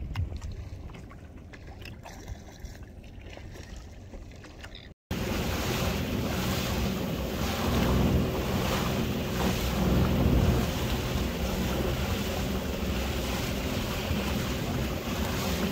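Sea-Doo FishPro jet ski running on open water, with a steady engine hum under wind buffeting the microphone and rushing water. The sound cuts out for a moment about five seconds in, then comes back louder and stays steady.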